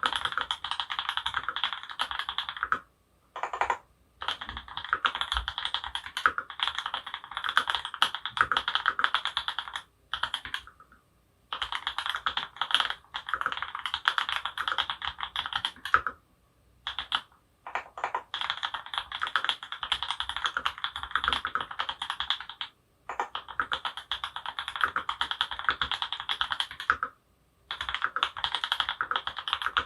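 Mechanical keyboard with lubed Creamsicle linear switches (C³ Tangerine housings with NovelKeys Cream stems) on an aluminium plate, typed on quickly in runs of several seconds with short pauses between.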